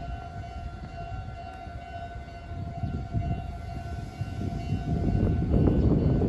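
A railway level-crossing warning bell sounding as a steady high tone while a train rumbles closer. The rumble grows from about halfway through and drowns the bell near the end.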